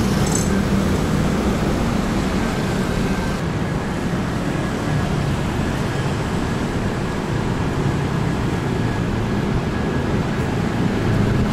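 Steady city street traffic noise: cars running past on the road.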